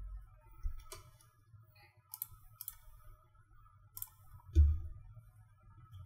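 Quiet room with a few faint, sharp clicks scattered through it and one soft, low thump about four and a half seconds in, which is the loudest sound. A faint steady high whine runs underneath.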